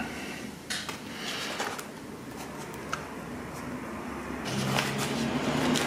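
Small clicks and rustling of hands handling a foam model plane and its receiver wiring. About four and a half seconds in, a steady low hum comes in and grows louder.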